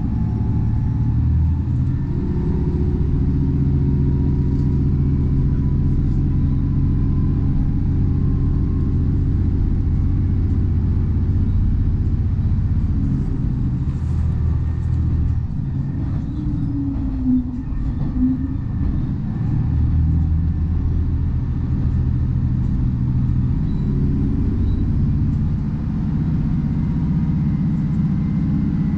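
Diesel railcar running on the line, with its engine hum and the rumble of the wheels on the rails heard from inside the car. The engine note drops away for a few seconds just past the middle, then comes back.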